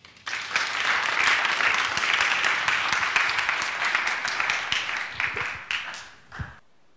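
Audience applauding: dense clapping that swells within the first second, holds steady, then thins out and cuts off suddenly near the end.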